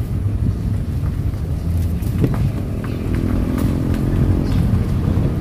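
Car driving slowly, its engine and tyre noise making a steady low rumble heard from inside the car.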